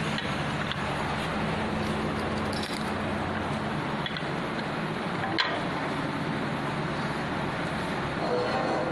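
Woodworking machine for shaping hammer handles running steadily: a low motor hum under a constant rush of noise, with one sharp click about five and a half seconds in.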